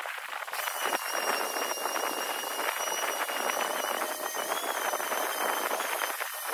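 A sanding sponge scrubs back and forth over a wet alloy wheel, making a dense scratchy hiss. A steady high-pitched squeal runs over the scrubbing, starting about half a second in.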